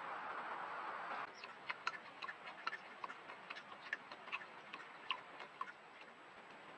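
Coyote lapping water at a pool: a run of short, soft ticks, about three to four a second, that starts after a steady hiss about a second in and stops shortly before the end.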